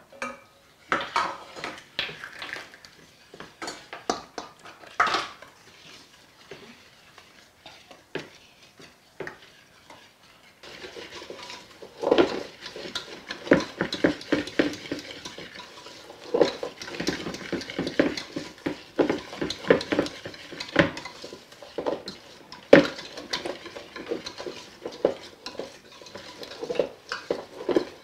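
A hand utensil mixing thick pancake batter in a stainless steel pot, clinking and scraping against the metal. A few scattered clinks at first, then from about eleven seconds in a steady, fast run of strokes as the batter is beaten hard.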